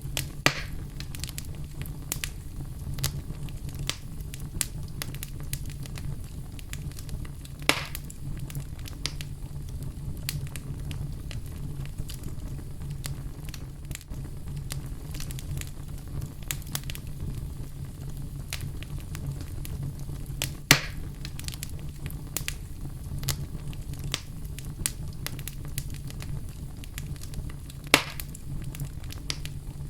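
Wood fire in a fireplace crackling: a steady low rumble of flames under constant small snaps, with four louder pops spread through, the first about half a second in and the last near the end.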